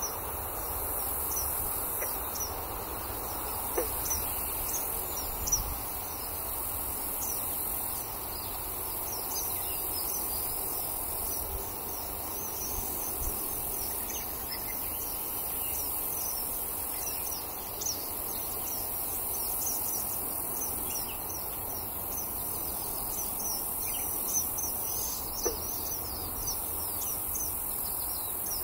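Eastern kingbirds giving many short, high chirps scattered throughout, over a steady drone of insects.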